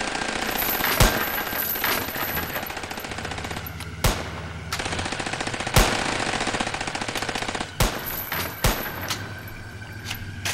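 Rapid automatic gunfire, a fast continuous rattle, with several louder single shots cracking out over it.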